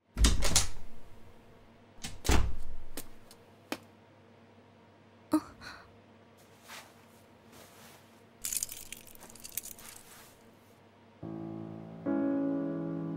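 Two loud thuds about two seconds apart, then a few faint clicks and knocks and a short rustle. Soft background music comes in near the end.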